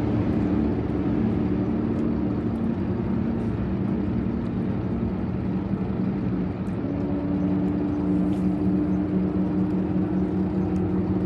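Outboard motors on several bass boats running as the boats pull away across the lake, a steady engine drone. About seven seconds in, a higher engine note joins in.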